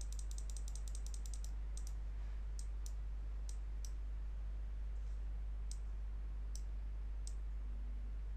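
Computer mouse clicking: a rapid run of clicks in the first second and a half, then single clicks every half second to a second. A steady low electrical hum lies underneath.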